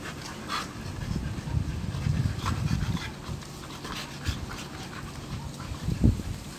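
Two boxer dogs play-wrestling, panting with rough low grunts and growls, loudest about one to three seconds in. There is one short, louder sound about six seconds in.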